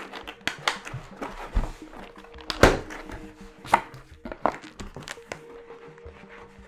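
A small mail package being opened and handled by hand: irregular rustling, crackling and tearing of packaging with knocks, the loudest knock about two and a half seconds in.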